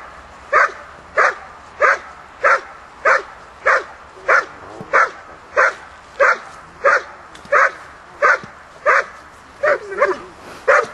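A dog barking steadily at a helper standing in a blind, in the bark-and-hold exercise of protection work: loud single barks about one and a half per second, in an even, unbroken rhythm, some seventeen of them.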